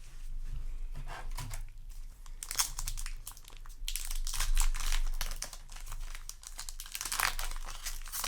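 Foil Yu-Gi-Oh! booster pack wrapper being crinkled and torn open: an irregular run of crackling rustles.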